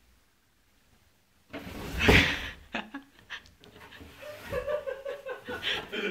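A propped-up cardboard box drops down over a toddler with a loud thud and cardboard scrape about a second and a half in, followed by a few lighter knocks as it settles. Laughter starts a couple of seconds later.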